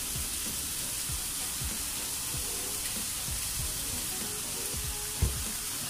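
Diced onion, bell pepper and garlic sizzling steadily as they sauté in a skillet over high heat, with one brief knock about five seconds in.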